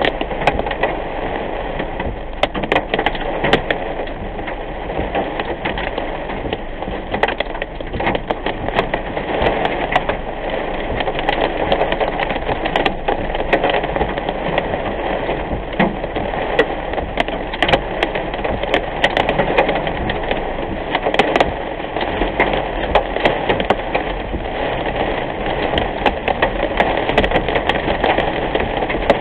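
Heavy rain hitting the windshield and roof of a moving car, heard from inside the cabin: a dense stream of sharp hits over a steady rush of tyre and road noise.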